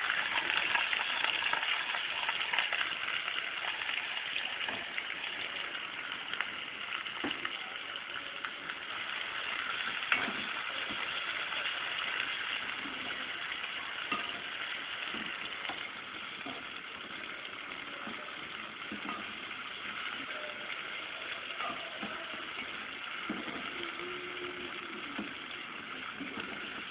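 Sliced onions and green seasonings frying in hot oil in a metal pot: a steady sizzle that starts loud just after they go in and slowly settles, with a few small knocks, the loudest about ten seconds in.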